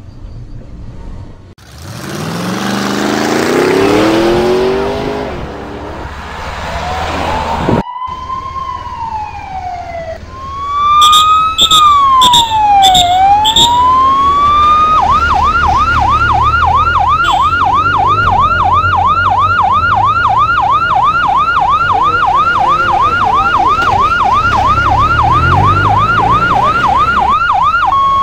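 Police escort siren: first a few slow wails rising and falling, broken by short blips, then from about halfway a fast yelp of about three cycles a second that keeps on steadily and loud. Before the siren, a motor vehicle passes with its engine note rising.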